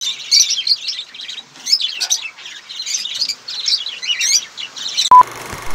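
Cockatiels chirping busily, a dense run of short, high chirps. Near the end a single short electronic beep sounds.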